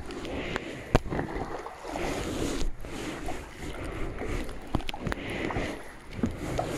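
Kayak paddle strokes in calm water: the water washes and splashes in swells every couple of seconds as the blade dips and pulls. Scattered sharp clicks, with one loud knock about a second in.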